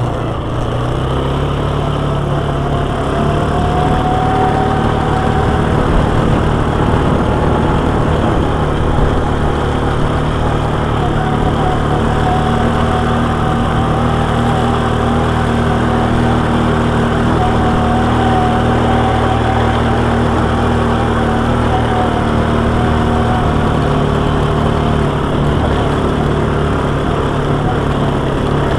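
Quad bike engine running steadily under way in low-range gear on a dirt track, with a fainter wavering whine above the engine note.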